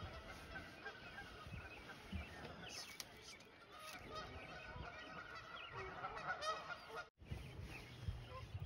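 A distant flock of waterfowl calling on a lake: a faint, continuous chatter of many short, overlapping calls. A low rumble comes in near the end.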